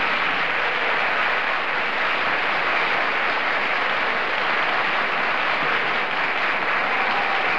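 Studio audience applauding, a steady, even clapping.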